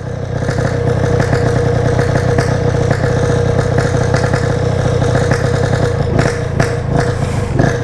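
Yamaha RX-King two-stroke single-cylinder engine idling steadily through its standard-style 'belek' exhaust while being warmed up before riding. There are a few light knocks near the end.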